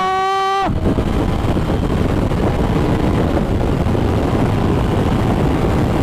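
Steady rush of wind over the microphone with the engine of a Yamaha XSR900 motorcycle running beneath it, cruising at about 100 km/h. A brief voice-like held tone is heard in the first second.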